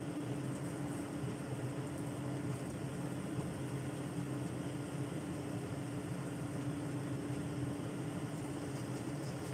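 Steady low hum over an even hiss from a gas stove, with beef and celtuce cooking in a lidded wok on the lit burner.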